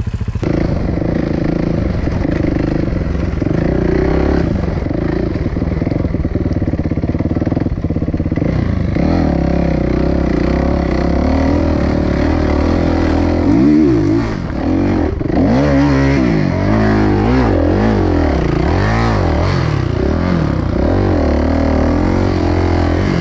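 Dirt bike engine running under throttle, holding a fairly steady pitch at first. About halfway through it starts rising and falling in pitch again and again as the throttle is opened and closed.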